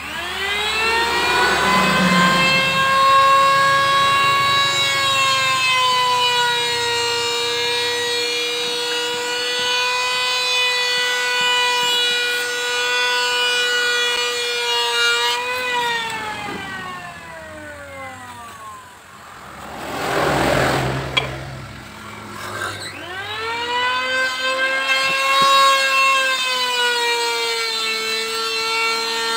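Electric motor of a woodworking machine giving a high, steady whine. It spins up at the start, runs at speed, coasts down with falling pitch about halfway through, then spins up again a few seconds later. A brief rushing noise comes in the gap.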